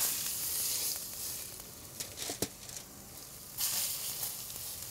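Blue marlin steaks laid into a very hot pan, sizzling sharply as they hit the metal. The sizzle is loudest at the start and eases off over about a second, with a few light knocks about two seconds in. A fresh burst of sizzle comes as another piece goes in near the end.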